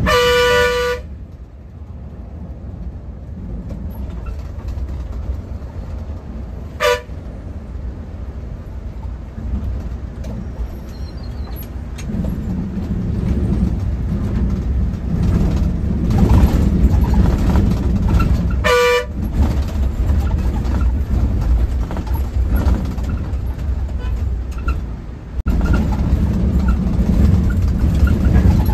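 Bus engine running under the road noise, growing louder about twelve seconds in, while a vehicle horn honks three times: a one-second blast at the start, then short toots about seven and nineteen seconds in.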